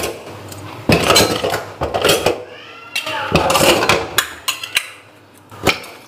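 Dishes and utensils clinking and clattering as they are set into the racks of an IFB Neptune SX1 dishwasher, in several separate bursts. A short, wavering high squeak sounds about halfway through.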